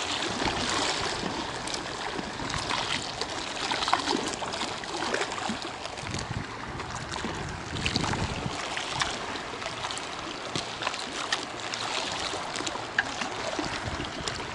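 Small waves lapping and splashing against a concrete reservoir bank, a steady wash with many small irregular splashes.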